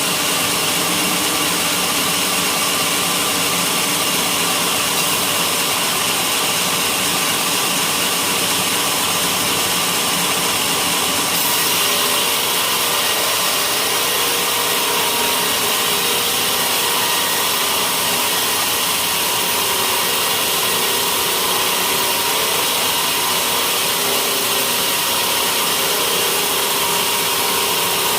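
Sawmill saw running steadily through a white teak beam, a continuous loud cutting noise with a slight change in tone about eleven seconds in.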